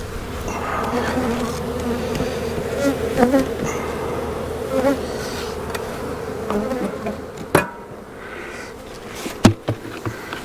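Honeybees buzzing steadily in a mass around an open hive, with two sharp knocks in the second half.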